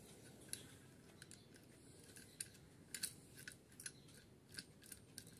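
Small plastic clicks and rattles of a selfie stick tripod with a clip-on light being handled and adjusted: a string of faint, irregular clicks.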